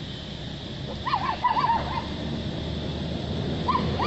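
Young long-tailed macaque giving short, squeaky, arched whimper calls: a quick run of about five about a second in, then two or three more near the end.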